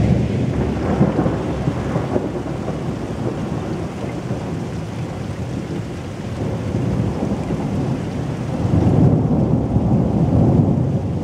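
Thunder from a close storm: a loud crack sets in suddenly at the start and turns into a long rolling rumble. The rumble swells again near the end, with steady rain falling.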